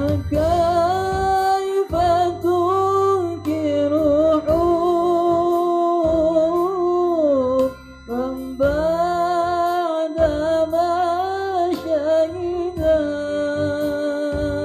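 A young male student singing a slow melody with long held, gliding notes over instrumental backing, with a brief pause for breath about halfway through.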